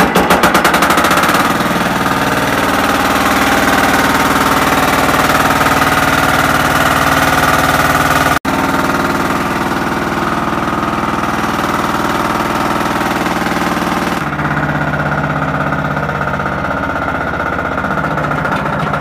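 Super Kama 14 HP single-cylinder diesel engine running just after start-up, its firing beats quickening over the first second or so and then settling into a steady run.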